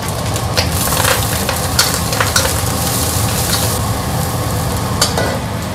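Egg and garlic sizzling in hot oil in a stainless steel wok. A metal spatula scrapes and knocks against the wok several times as the food is stirred.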